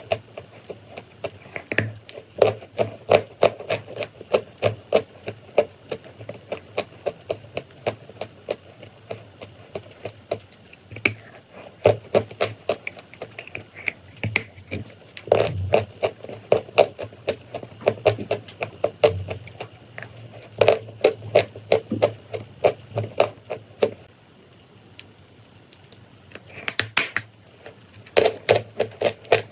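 Chalk and clay crunching as it is bitten and chewed: runs of rapid, crisp crunches several a second, broken by short pauses, with a quieter stretch a little before the end.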